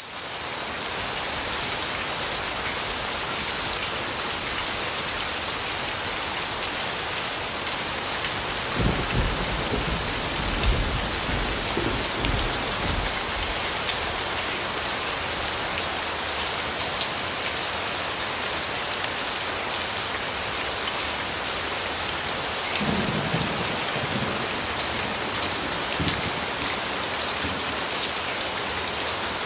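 Steady heavy rain falling and pattering on a surface, fading in over the first second. Low rumbles of thunder swell about nine seconds in and again around twenty-three seconds.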